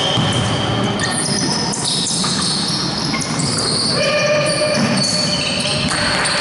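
Basketball game on a wooden court: sneakers squeak over and over, short high squeals overlapping, and the ball thuds now and then, echoing in a large gym hall.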